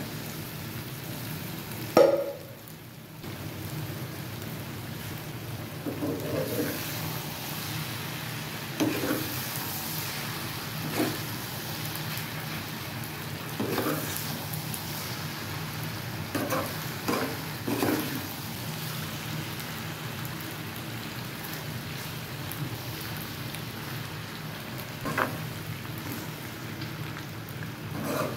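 Macaroni and vegetables frying in a hot pan: a steady sizzle, with a metal spoon scraping and knocking against the pan every few seconds as it is stirred.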